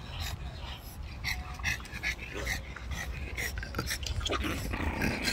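French bulldog panting in quick, even breaths, about two to three a second, over a low steady rumble.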